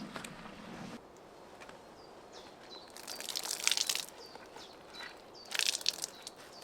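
Laundry being washed by hand: two short bursts of scrubbing and sloshing, the second near the end. Small birds chirp briefly several times in between.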